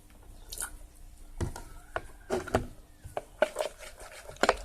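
Glue and borax-water slime being stirred in a container: a series of short clicks and scrapes, coming faster in the second half, as the mixture starts to come together.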